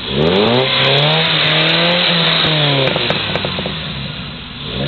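Engine of a Toyota pickup built for rock crawling, revving under load as the truck climbs over logs. The revs rise in the first half second, hold high for about two seconds, then drop off.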